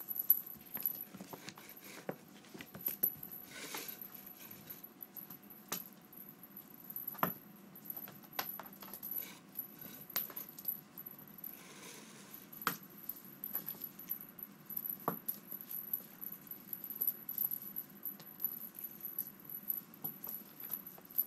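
Scattered light clicks, taps and brief rustles as cats bat and pounce at a feather cat-teaser wand on a towel-lined plastic tray, with a faint high-pitched whine under them.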